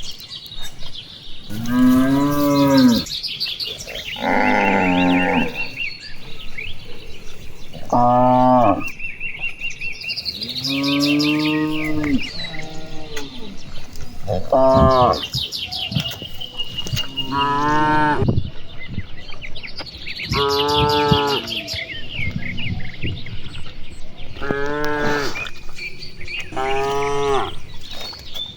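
Cattle mooing again and again, a call about every two to three seconds, each about a second long and varying in pitch from one call to the next, as from several cows in a herd.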